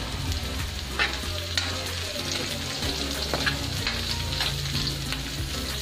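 Sliced onions, ginger and garlic sizzling as they sauté in hot oil in a pan, stirred with a spatula that scrapes the pan in many short, sharp strokes.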